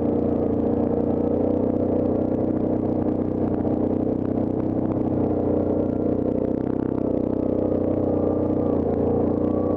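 Yamaha Grizzly ATV engine running steadily at low, even speed while the quad rides a rocky dirt trail.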